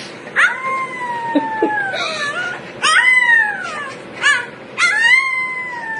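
Husky-type puppy howling: four high howls, the first and last long and slowly falling in pitch, a shorter rise-and-fall one in the middle and a brief yelp just before the last.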